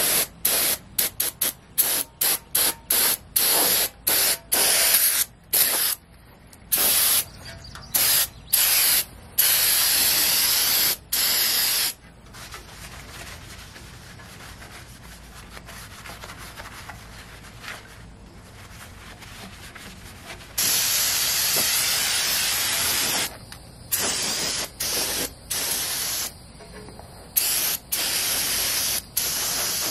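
Aerosol spray can hissing in many short squirts, then longer passes, with a quiet stretch around the middle and one long spray of a few seconds after it.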